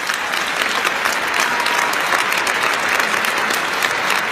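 Large audience applauding loudly and steadily, a sustained ovation at the end of a speech.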